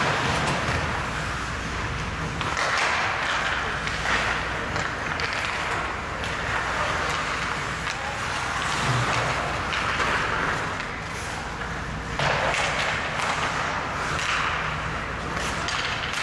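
Ice hockey play: skate blades scraping and carving the ice in swelling waves, with sharp clacks of sticks and puck throughout.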